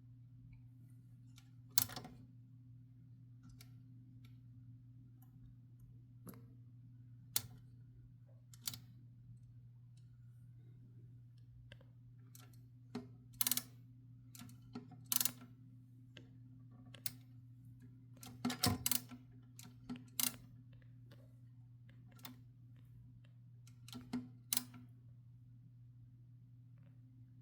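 1969 Adler J5 manual typewriter being worked slowly: sparse, irregular sharp clacks from its mechanism, a dozen or so with long gaps between them, over a steady low hum.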